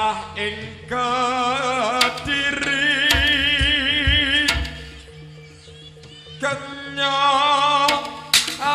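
Live jaranan ensemble music: a wavering, held melody line in two long phrases, the second starting after a brief quieter stretch, over steady low tones and sharp drum strokes.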